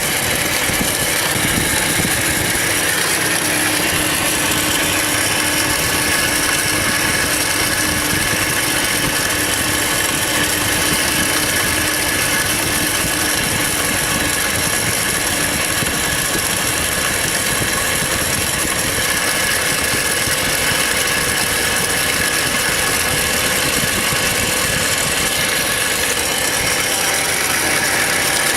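Nissan VG-series turbo V6 idling steadily, with a rattling noise from the front of the engine. It is the sign of a worn accessory-belt pulley bearing with play in it.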